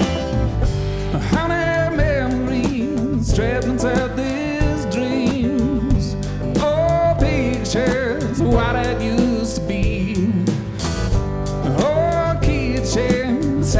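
Live band playing a country-blues song: guitar and bass under a steady beat of percussion hits, with a wavering lead melody on top.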